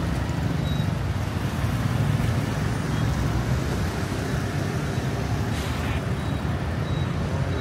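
Steady rumble of road traffic and engines, with no single vehicle standing out.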